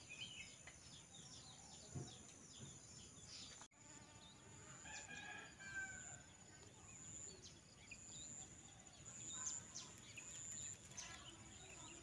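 Faint rural ambience: a steady high insect drone, birds chirping, and a rooster crowing about five seconds in. The sound cuts out for an instant just before the crow.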